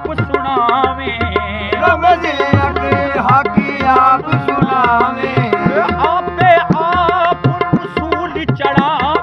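Music: tabla drumming in quick strokes under a wavering, gliding melody line.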